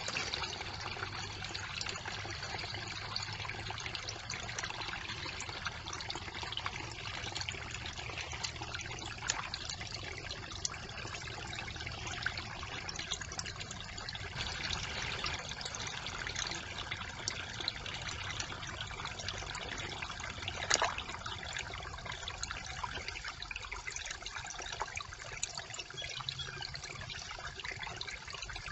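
Brook water trickling steadily through a beaver dam of sticks, with scattered small ticks and splashes. One sharp click comes about two-thirds of the way through.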